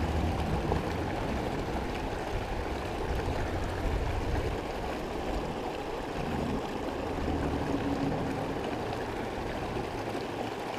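A creek running steadily, with water swishing in a plastic gold pan as it is swirled and shaken.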